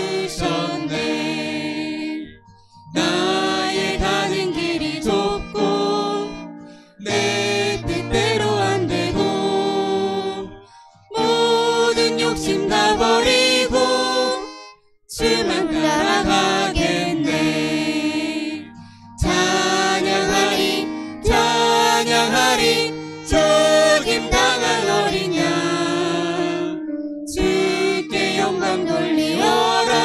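A worship team of male and female voices singing a Korean hymn with acoustic guitar, violin and keyboard. It comes in phrases of a few seconds each, with brief breaks between them.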